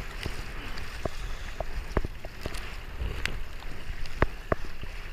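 Kayak paddling through choppy swell: paddle blades splashing and water sloshing against a plastic sit-on-top kayak, with wind rumbling on the microphone. Short sharp ticks and knocks come every half second or so.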